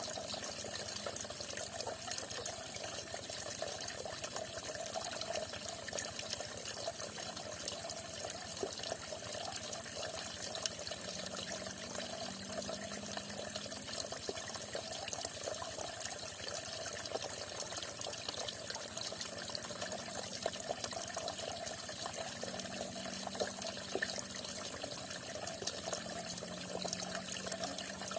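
Water falling and splashing steadily, a continuous even rush like a small stream pouring from a spout.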